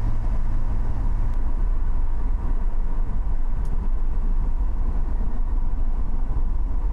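A car being driven: a steady low rumble of engine and road noise. A low steady hum drops out just over a second in.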